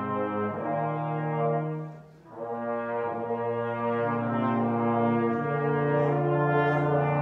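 Brass quartet of trumpet, trombone and two euphoniums playing a Christmas carol in held chords, with a short break between phrases about two seconds in.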